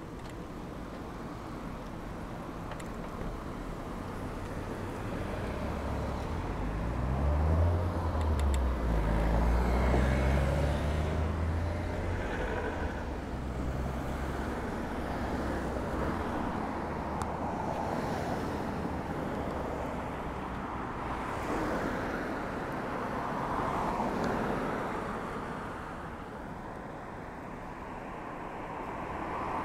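Road traffic: cars passing on a wide road, heard with steady road noise. Partway through, one vehicle's engine drones low and close, rising in pitch as it pulls away, loudest about eight to ten seconds in.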